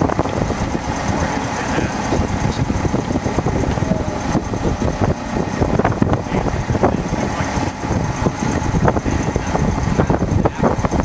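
A heavy crane's engine running steadily, with frequent knocks and rattles throughout.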